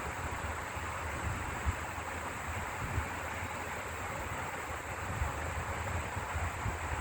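Wind buffeting the microphone in uneven gusts over a steady outdoor hiss.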